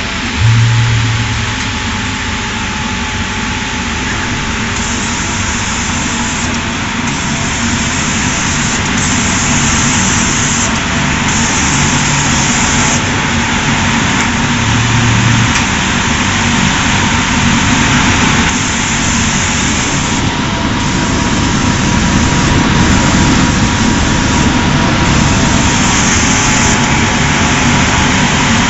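Rigid-box spotting and gluing machine running: a steady mechanical hiss and hum, with a higher hiss cutting in and out every few seconds and a few short low hums.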